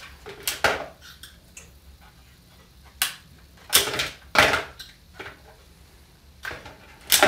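Five or six short scrapes at uneven intervals as a tool is drawn across a MoonRay S resin 3D printer build platform, clearing off any leftover cured resin so the platform is clean.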